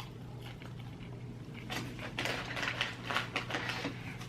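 Quiet rustling and small clicks starting about a second and a half in and stopping shortly before the end, over a low steady hum.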